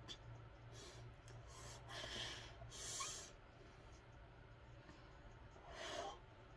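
A man's breaths of exertion while curling dumbbells: three short, sharp exhales about two, three and six seconds in, over a faint low steady hum.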